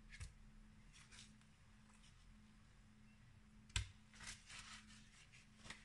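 Faint rustling of kitchen paper towel being peeled off pressed blocks of firm tofu, in short scattered bursts, with one light knock a little before four seconds in.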